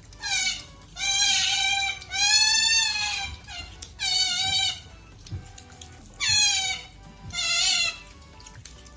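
An animal giving six high, wavering calls in a row, each under a second long, with short gaps between them.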